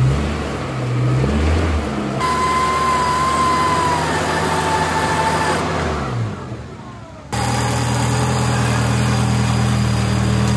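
Off-road 4x4 engine revving up and down, then running at steady revs with a thin high whine over it for a few seconds. The sound changes abruptly twice, dropping away before it comes back at steady revs.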